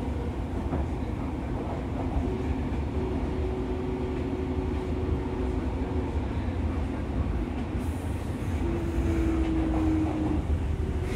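Fukuoka City Subway 2000 series train with IGBT inverters, running along the line as heard from inside the car: a steady rumble from the wheels and running gear. A faint motor tone sinks slightly in pitch about nine seconds in.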